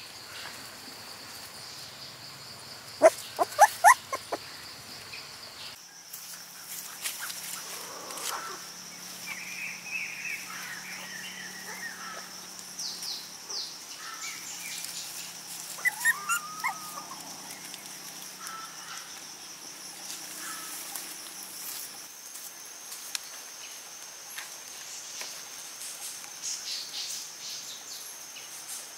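Puppies yelping and whimpering: a quick run of sharp yelps about three seconds in, wavering whining cries after, and another short burst of yelps and a whine around the middle.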